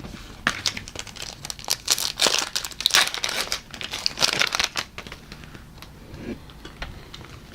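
Trading card pack wrapper crinkling and tearing as a pack is torn open, a dense crackle for a few seconds that thins out after about five seconds.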